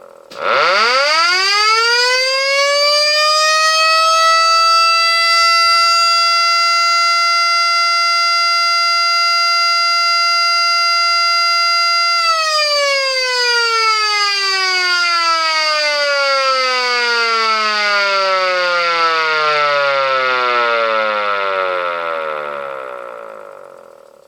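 Jurk V1 siren sounding the fire-alarm signal: it winds up quickly to a steady tone, holds it for about ten seconds, then winds down slowly and fades out near the end.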